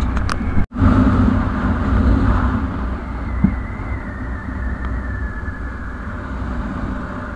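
Bajaj Pulsar NS 160's single-cylinder engine running steadily at cruising speed, mixed with wind rumble on the bike-mounted microphone. The sound cuts out for an instant under a second in.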